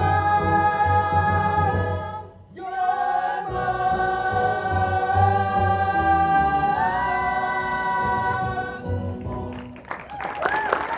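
A chorus of voices singing long held notes over accompaniment, with a brief break about two seconds in and the chord moving up about seven seconds in. Applause and cheering break in near the end.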